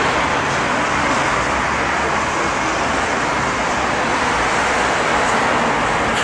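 Jet engines of an Emirates Boeing 777-300ER, its two GE90-115B turbofans, running with a loud, steady rushing noise.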